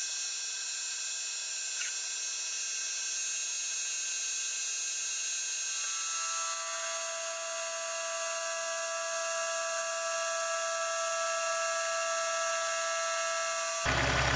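Milling machine spindle turning a 10 mm high-speed-steel ball-nose end mill as it cuts into steel: a steady whine of several fixed high-pitched tones over a hiss. About six seconds in another steady tone joins as the cut goes on, and near the end the sound changes suddenly, with a low rumble coming in.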